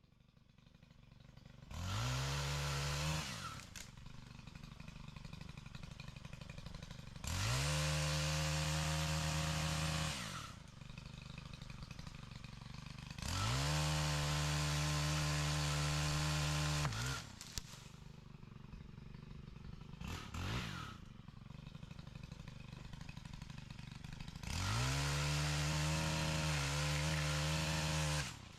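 Chainsaw revved from idle to full throttle in four bursts of a few seconds each, with one short blip, dropping back to idle between bursts; the pitch rises sharply at each burst and falls at each release.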